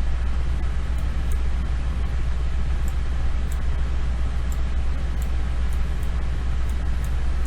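Steady low electrical hum with a constant hiss, the background noise of a desk microphone, with a few faint short clicks scattered through it.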